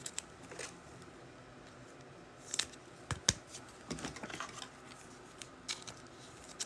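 Trading cards being handled: a few light clicks and short rustles of cards and plastic card holders, with quiet between them.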